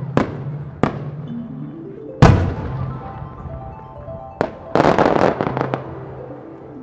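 Aerial firework shells bursting in sharp bangs, the loudest about two seconds in. A rapid cluster of many small pops follows about five seconds in: the little bursts of a senrin (thousand-flower) shell going off together. Background music plays underneath.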